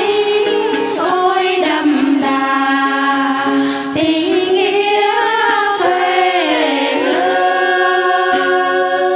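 A group of women singing a Bình Liêu hát then folk song together through microphones, in long held notes that slide up and down in pitch.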